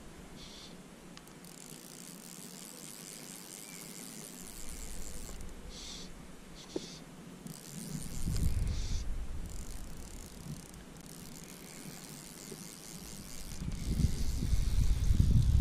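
Fly reel's click-pawl ratchet buzzing in runs of a few seconds as line is wound in with a fish on. Gusts of wind rumble on the microphone about eight seconds in and again near the end.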